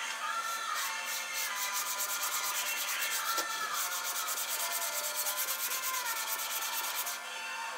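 Small brush scrubbing a wet part of a vintage Stanley No. 3 bench plane in rapid, even back-and-forth strokes that stop suddenly near the end.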